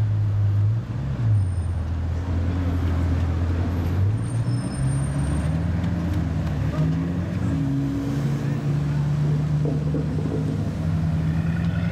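Bugatti Chiron's quad-turbo W16 engine pulling away at low speed: a low, steady engine note that steps up in pitch a few times as it drives off.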